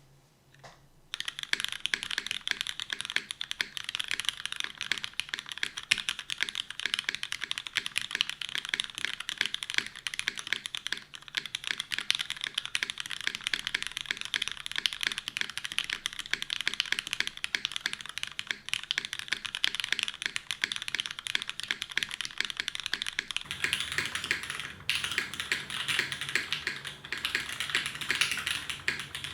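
Custom mechanical keyboard with lubed Cherry MX Black linear switches on an aluminum plate and GMK keycaps, being typed on quickly and continuously in a dense stream of keystroke clacks. The typing starts about a second in.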